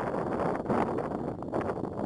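Wind buffeting the microphone: a rough rushing noise that swells and dips in gusts.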